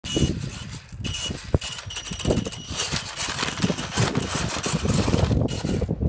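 Electric motor and gearbox of an Axial Deadbolt RC rock crawler whining in short spurts as it is driven, with a sharp click about a second and a half in.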